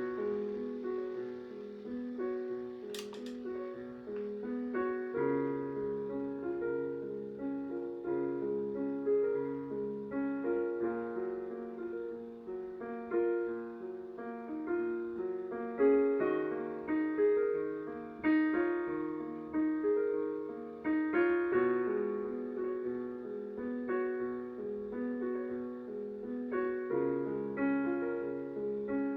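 Solo piano playing slow, repeating broken-chord figures over sustained bass notes. There is a brief sharp click about three seconds in.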